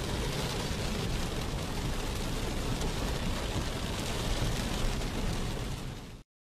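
Heavy cloudburst rain beating on a car's roof and windscreen, heard from inside the cabin as a dense, steady hiss with a deep rumble beneath. It cuts off abruptly near the end.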